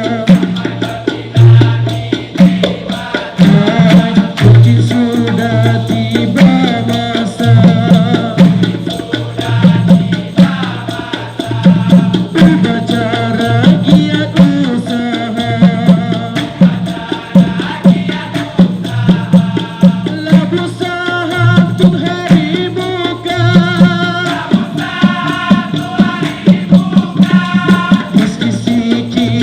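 Dikir barat ensemble music: frame drums beat a steady, driving rhythm with maracas shaking along, under a wavering melodic line that grows stronger in the second half.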